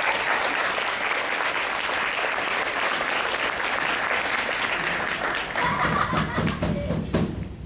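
Theatre audience applauding at the end of a musical number, thinning out with a few voices near the end.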